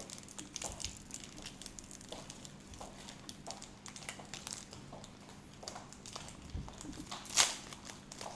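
Foil trading card pack being crinkled and torn open by hand: scattered small crackles, with a louder sharp crinkle-and-tear burst about seven seconds in.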